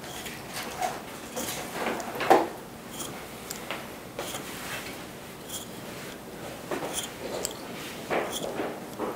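Short, crisp scratching strokes of a hand-held microblading blade drawn across the skin, many in quick irregular succession, the loudest about two seconds in.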